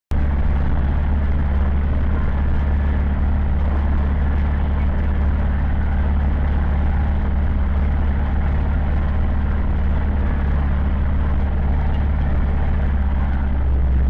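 Zetor 7011 tractor's four-cylinder diesel engine running steadily while driving, heard from inside the cab as a constant low drone.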